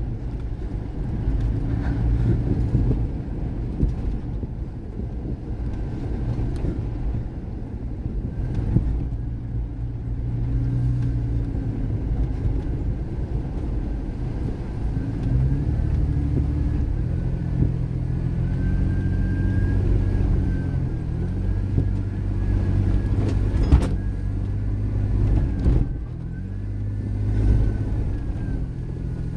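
A vehicle driving a rough dirt trail, heard from inside the cabin: a steady engine hum whose pitch rises and falls as it works over the terrain, with road rumble and a sharp knock from a bump about 24 seconds in.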